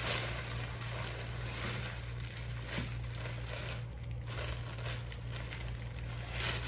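Packaging rustling and crinkling as a sneaker box is unpacked by hand, with a sharp tap near the end, over a steady low hum.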